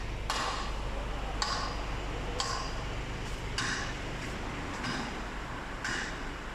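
Regular mechanical ticking, about one tick a second, six ticks in all, over a steady low hum.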